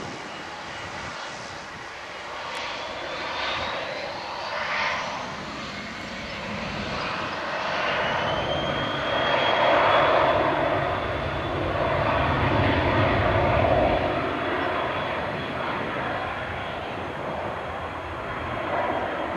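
Twin turbofan engines (Pratt & Whitney Canada PW545) of a Cessna Citation XLS business jet whining and rumbling as it spools up for takeoff. The whine rises in pitch about seven seconds in and then holds steady, with the rumble loudest in the middle.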